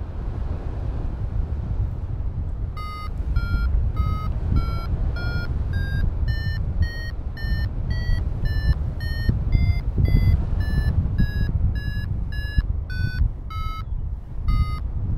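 XCtracer Mini IV paragliding variometer sounding its climb tone: short beeps about twice a second, rising in pitch and then falling back, the sign of lift that strengthens and then weakens as the glider climbs in a thermal. Wind rushes over the microphone throughout.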